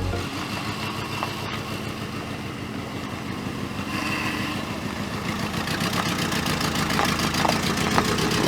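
The 1986 Chevrolet Caprice Classic Brougham's engine idling steadily, getting a little louder from about halfway through.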